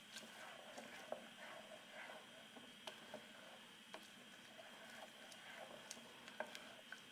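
Faint stirring of a wet malt-and-oat mash with a wooden spoon in a metal pot: soft squishing and swishing, with a few light taps of the spoon on the pot.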